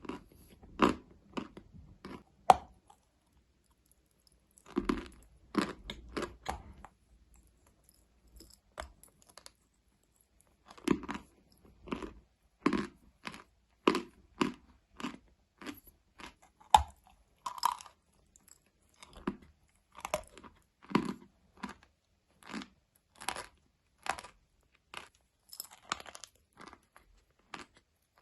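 Close-up chewing of something dry and crunchy: rapid crisp crunches, roughly two a second, broken by two short pauses.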